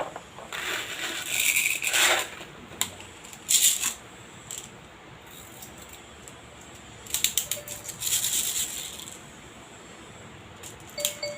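Plastic airsoft BBs rattling and clicking as they are handled, in several short bursts with pauses between.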